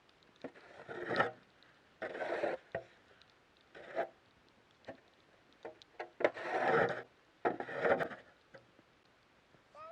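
Rough wood scraping and rubbing against wood in five strokes of up to about a second each, with small knocks in between.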